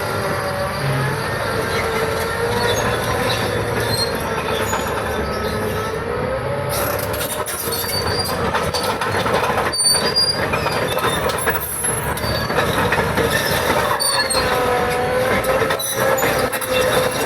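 Caterpillar D6T crawler bulldozer running, its steel tracks giving a wavering squeal with scattered clanks.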